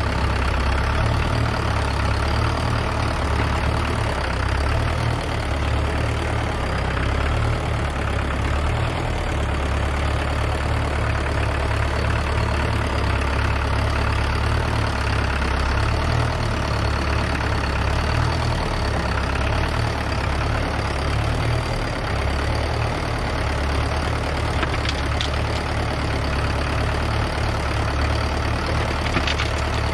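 A diesel machine engine running steadily at an even speed.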